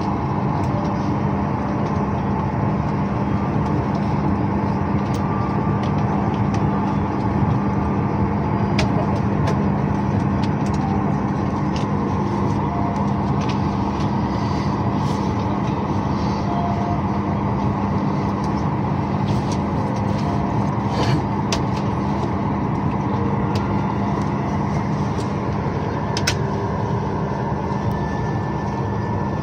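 Steady cabin noise of an airliner parked at the gate before engine start: ventilation air rushing with a steady low hum, and a few faint clicks.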